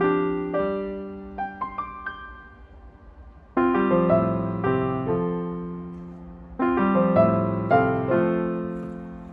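Background piano music: gentle chords and single notes that ring and fade, with a fresh chord struck about three and a half seconds in and again near six and a half seconds.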